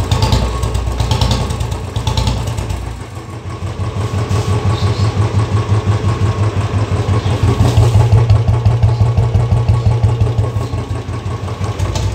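Royal Enfield Bullet Standard 350 single-cylinder engine idling through a mini Punjab aftermarket silencer, giving the steady 'dug dug' exhaust thump. The thumping dips briefly, then grows louder about halfway through.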